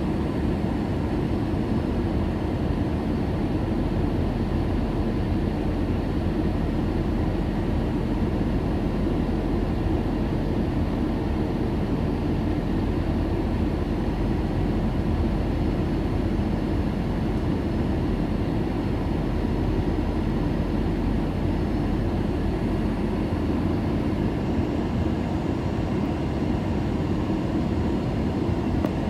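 Cabin noise inside an Airbus A321 airliner in flight: a steady low rumble of airflow and engines, even throughout, with a few faint steady tones above it.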